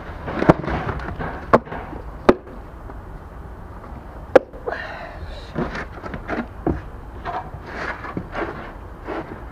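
Sharp clacks and knocks of tools and a filler tin being handled against a boat hull and the ground: four loud single cracks in the first four and a half seconds, then a run of softer knocks and scrapes.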